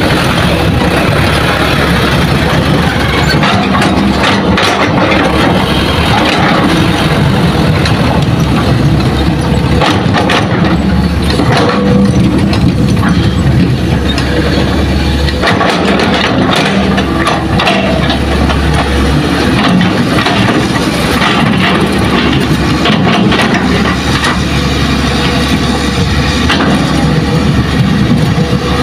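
Hitachi hydraulic excavator's diesel engine running steadily under digging load, with scattered knocks and scrapes from the bucket working into soil and rocks.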